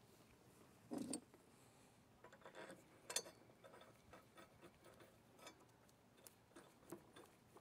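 Mostly quiet, with a soft knock about a second in and scattered faint clicks and taps as a new lawn mower blade is handled and set against the mower's blade spindle.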